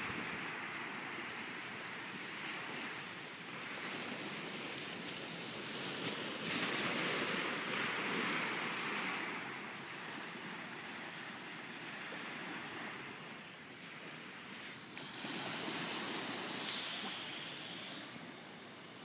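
Ocean surf breaking and washing up the beach, a steady rushing that swells louder twice as waves come in.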